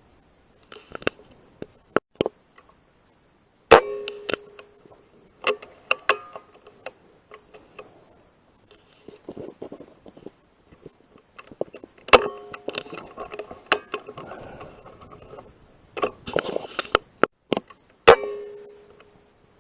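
Three air rifle shots at rats, each a sharp crack with a short ring after it, about four, twelve and eighteen seconds in. Smaller clicks and rustling come between the shots.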